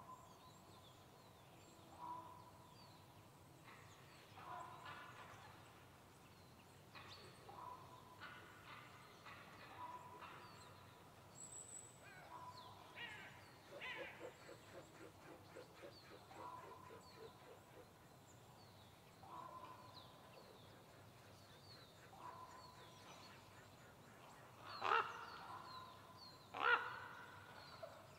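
Quiet pine-forest ambience with birds calling on and off, including crows cawing; the two loudest harsh caws come near the end.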